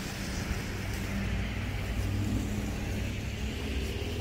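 Steady low rumble of road traffic, with a constant engine hum underneath.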